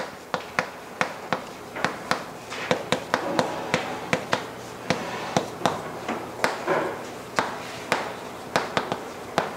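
Chalk writing on a chalkboard: a run of sharp, irregular taps, several a second, as the chalk strikes the board with each stroke.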